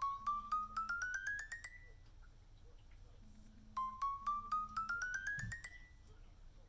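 Phone alarm ringing as a medicine reminder: a quick run of short notes climbing in pitch over about two seconds, heard twice, the second run starting a little past the middle.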